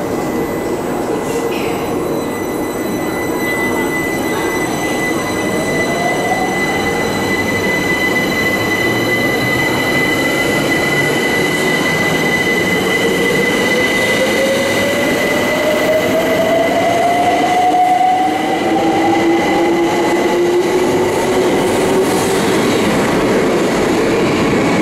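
London Overground Class 378 electric multiple unit pulling out of an underground platform. Its traction motors whine in several tones that rise slowly in pitch as it accelerates, over steady wheel and rail rumble, with a steady high whistle throughout.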